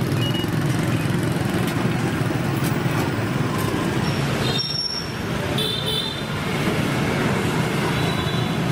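Busy city street traffic, mostly motorbikes and cars, making a steady low rumble. There are a few short high beeps about halfway through.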